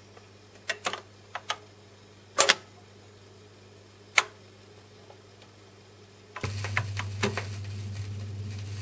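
Garrard automatic record changer in a 1963 Kriesler stereogram cycling: a run of mechanical clicks and a loud clack about two and a half seconds in as the 45 drops onto the turning platter, then a single click. From about six seconds in, the stylus is in the lead-in groove: steady surface hiss with a few crackles over a low hum.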